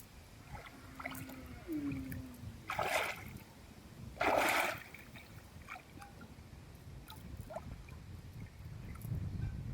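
Water splashing twice, briefly, about three seconds and four and a half seconds in, the second splash louder, over a steady low rumble.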